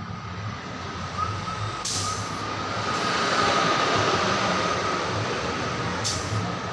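Steady mechanical running noise with a thin constant whine and a low rumble, and a hiss that swells in the middle and then eases.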